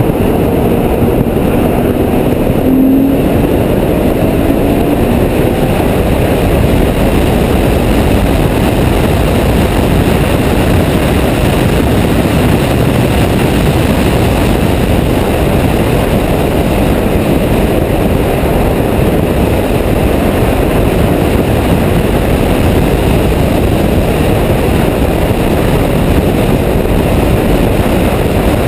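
Ferrari F12berlinetta's V12 driven at speed, heard from a camera mounted on the outside of the car, so a steady loud rush of wind and road noise covers most of the engine. The engine note rises briefly in the first few seconds.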